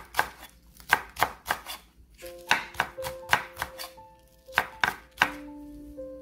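Chef's knife slicing green onion on a wooden cutting board: sharp knocks of the blade on the board, two or three a second, stopping about five seconds in. Faint background music with held notes comes in about two seconds in.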